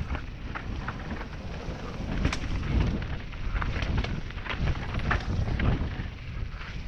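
Mountain bike descending fast on a dirt trail: wind rumbling on the camera microphone along with tyre noise, and frequent short rattles and clacks from the bike as it goes over bumps.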